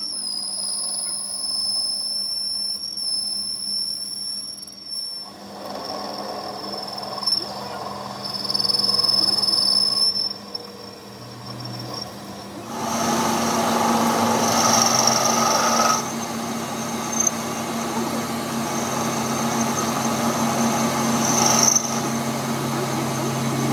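Workshop power tools or machine tools running: a steady high whine at first, then a louder, rougher machining noise. The sound changes abruptly several times.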